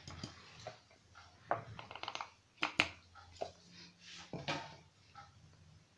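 Stainless-steel mixer-grinder jar knocking against a plate as ground biscuit powder is tipped out: a few sharp clinks and taps, the loudest a little before the middle.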